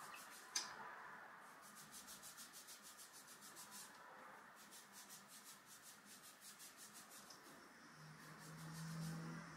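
Fingertips rubbing the scalp in a quick massage, a faint rhythmic rubbing at about four to five strokes a second, with a short low hum near the end.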